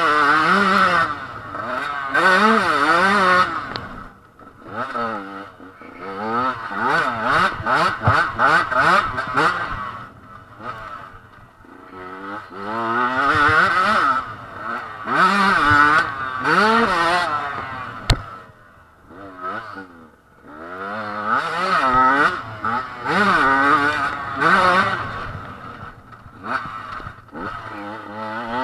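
Husqvarna 125 TE two-stroke dirt bike engine heard from on board while riding a dirt track. It revs up and drops back over and over as the throttle is opened and shut, with the pitch climbing through each run and brief quieter lulls when the rider backs off.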